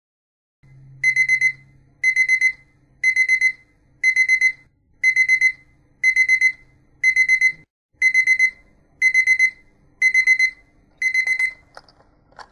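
Alarm clock beeping: bursts of four quick, high beeps, about one burst a second, eleven bursts in all, until it stops near the end, followed by a couple of faint clicks.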